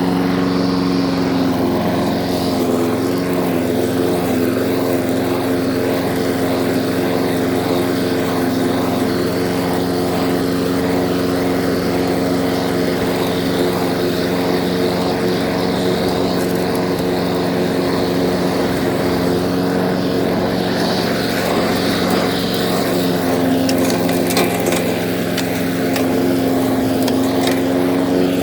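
Small lawn mower engine running steadily, its pitch dipping slightly a couple of seconds in and shifting again near the end.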